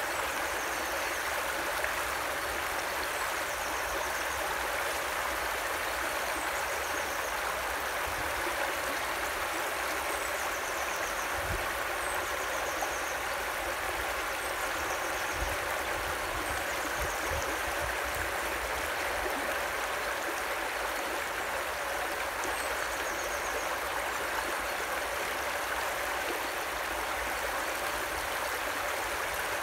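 River water flowing and splashing steadily over a flooded road ford. A bird's short, high, trilled song repeats every couple of seconds above it.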